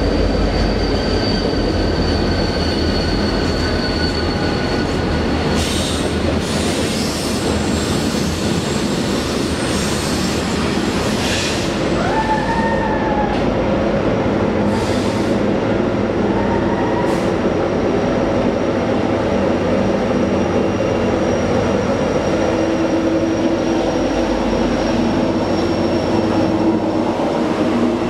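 Freight trains of covered hopper cars rolling past on adjacent tracks: a steady heavy rumble with thin, high wheel squeals and a few sharp clanks.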